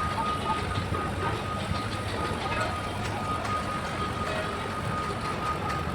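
Heavy diesel machinery running steadily on a construction site, a low rumble, with a thin steady high tone over it that stops near the end.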